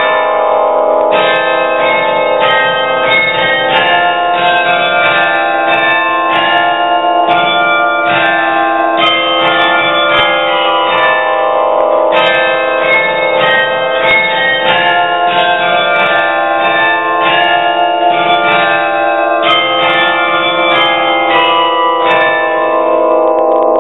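Carillon bells played from the baton keyboard, carrying a Russian folk melody in quick struck notes over long, overlapping ringing tones.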